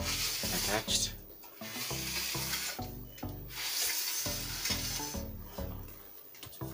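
Rubbing and scraping noise in repeated bursts, over background music with a regular low bass pattern.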